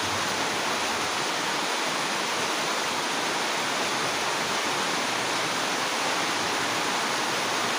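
A loud, steady hiss that does not change.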